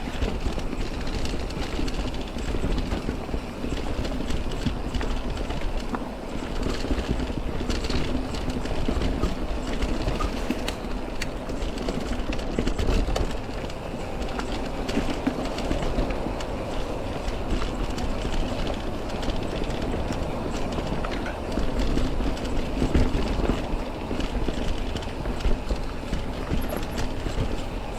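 Mountain bike rolling over rocky, rooty singletrack: a continuous tyre rumble with the bike rattling and knocking over bumps.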